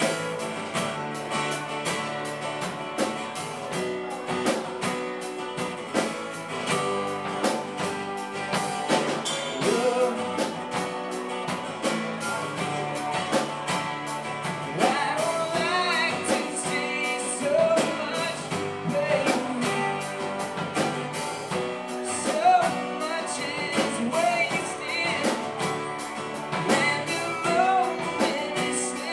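Live band playing: strummed acoustic guitars over drums, with a man's voice singing from about ten seconds in.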